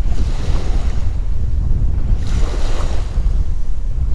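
Wind buffeting an action camera's microphone in a steady low rumble, with small waves washing on the shore underneath; the wash swells twice.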